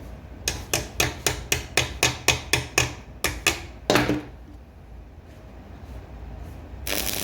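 A hammer tapping quickly, about a dozen sharp strikes at roughly four a second, then one heavier blow about four seconds in. A short burst of noise comes near the end.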